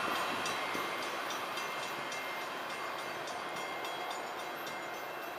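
Freight train running away down the line, its noise fading steadily. Over it a railroad crossing bell rings in quick regular strokes, about three a second, as the gates lift.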